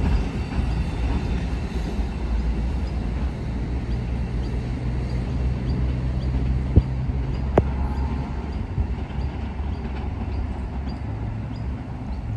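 A diesel train's engine running steadily with a low hum, and two sharp clicks a little past the middle.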